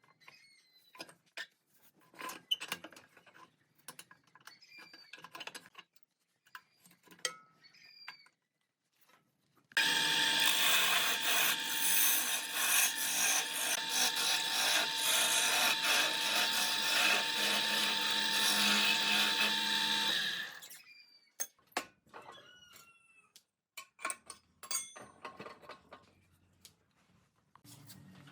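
Woodworking power tool running steadily for about ten seconds in the middle, starting and stopping abruptly. Before and after it, scattered knocks and clicks of wood and tools being handled, with a few short chirps.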